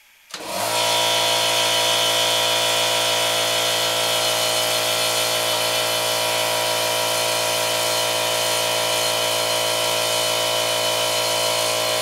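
A small 13-amp, roughly 5 CFM electric air compressor starting about half a second in and running steadily on an inverter's output: the inverter starts and runs it without trouble.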